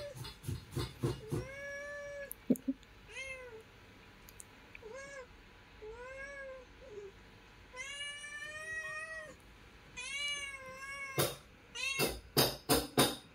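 Newborn kittens mewing, about seven short high cries that rise and fall, one drawn-out call a little past halfway. Near the end a fast run of loud sharp taps takes over.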